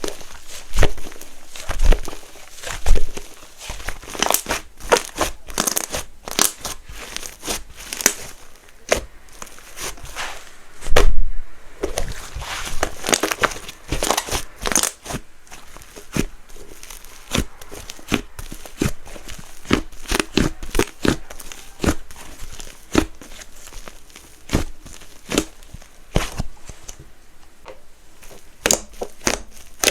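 Soft clay slime, a glue base mixed with clay, being pressed and squished by hand: an irregular run of sticky clicks and crackles, with a louder burst of them about eleven seconds in.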